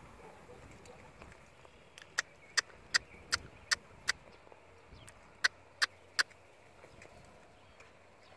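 Tongue clucks to a horse being ridden at a walk: a run of six sharp clicks, then after a short pause three more, about two or three a second. These are the usual cue to keep a green horse moving forward.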